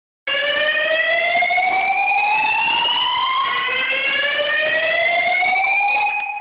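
Fire alarm sounder going off during a test, sounding a slow rising whoop. It comes on abruptly, and each sweep climbs in pitch for about three seconds before the next begins low again.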